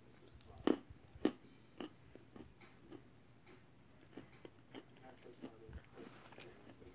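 A person biting into and chewing Cra-Z-Art chalk close to the microphone. Two sharp crunches come about a second in, followed by a scattered run of smaller crunches as the chalk is chewed.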